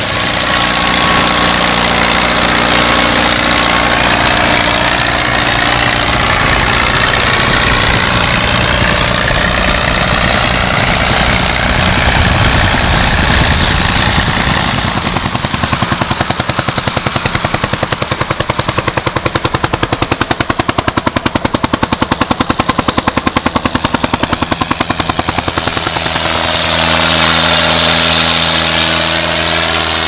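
Vintage tractor engine running steadily. For about ten seconds in the middle it turns into a rapid, even chugging beat, then settles back to a steady drone near the end.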